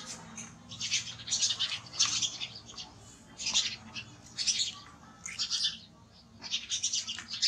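Knife cutting into a pineapple, a series of short, crisp slicing and scraping strokes, some coming in quick clusters.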